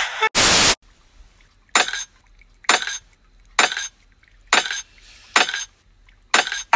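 A loud half-second burst of noise, then a knife and fork clinking together about once a second, six short metallic strikes each with a brief ring.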